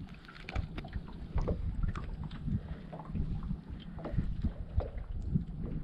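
Low wind rumble on the microphone, with scattered light clicks and taps from a small bass being swung aboard and handled.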